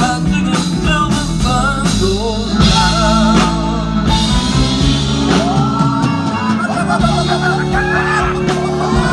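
Live band music: a man singing over acoustic guitar, a band and steady drum beats.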